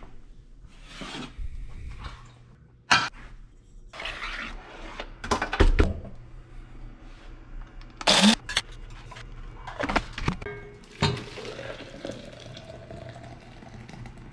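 A run of kitchen sounds: a steel saucepan knocking on a glass-top stove, then an electric coffee grinder starting up with a short rising whir about eight seconds in, then water poured from the saucepan into a stainless steel coffee pot, the pour rising in pitch as the pot fills.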